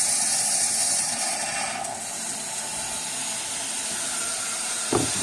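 Steady hiss of water rushing through the boiler's opened pressure-reducing fill valve as the hydronic system refills. A short knock sounds near the end.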